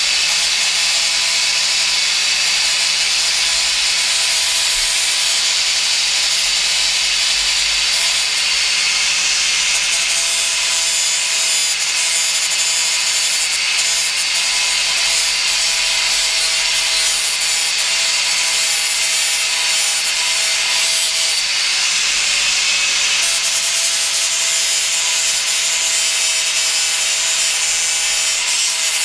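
Angle grinder with a fibre grinding disc running continuously against a stainless steel pipe: a steady motor whine under a loud rasping hiss, grinding the pipe's surface back.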